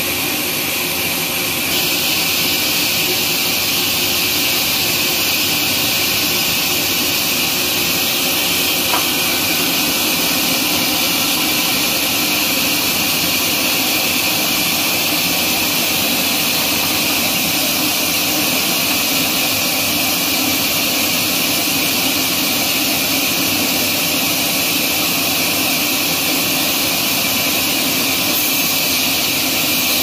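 Horizontal band sawmill running and cutting through a log on its trolley carriage: a steady, loud hissing whine of the blade and motor, which grows a little louder about two seconds in.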